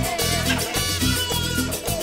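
Latin dance music in salsa style, with a repeating bass line and percussion.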